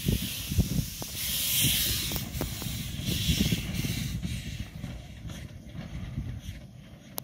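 Steam hissing from the 1916 Decauville narrow-gauge steam locomotive No. 1652 as it runs round its train, in three bursts of about a second each, over a low rumble.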